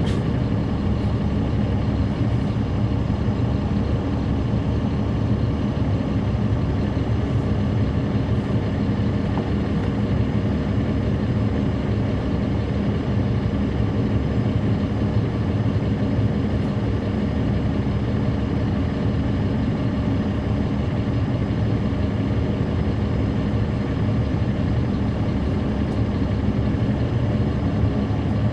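Caterpillar C13 ACERT inline-six diesel of a 2009 NABI 40-SFW transit bus running steadily, heard from on board, its hum holding one pitch throughout.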